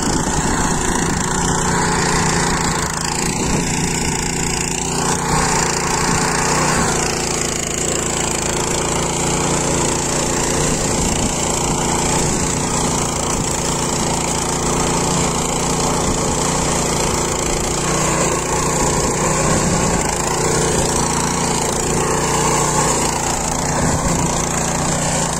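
Walk-behind power tiller's engine running steadily under load as its rotary tines churn the soil between crop rows.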